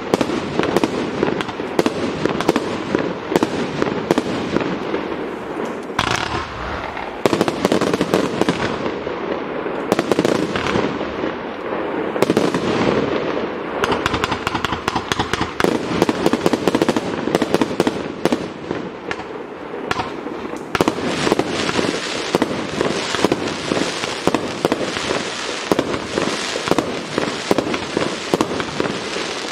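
A 221-shot fireworks cake (MAVIPI M221 "The Godfather") firing shot after shot, launches and aerial bursts following each other several times a second. It gets denser in the last third.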